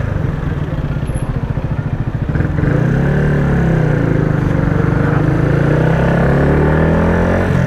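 Yamaha MT-125's single-cylinder 125 cc engine, breathing through a Scorpion Serket Taper aftermarket exhaust, pulling the bike along the road as heard by the rider's helmet-level mic. The engine note climbs over the first couple of seconds, then holds fairly steady with small rises and dips.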